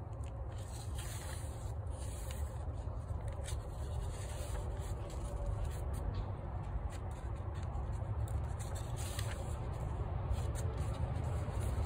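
Pages of a paper book being turned and smoothed flat by hand: soft paper rubbing and rustling over a steady low rumble.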